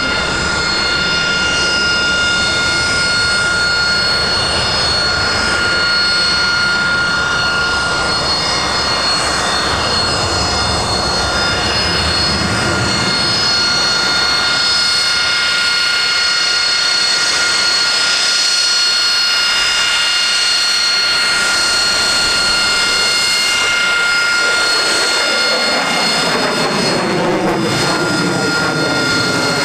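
Rolls-Royce Pegasus turbofan of a Harrier jump jet running at high power: a loud, continuous jet roar with steady high-pitched whine tones over it. Near the end the sound sweeps and shifts in pitch as the aircraft moves.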